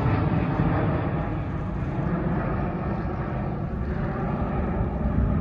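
Jet airliner's engines heard from the ground as it climbs away overhead after takeoff, a steady rumble slowly fading.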